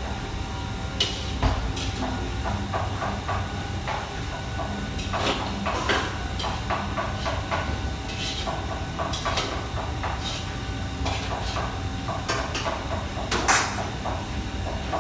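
Busy kitchen: irregular clinks and knocks of pans and utensils over a steady hiss and low hum, with one louder clatter near the end.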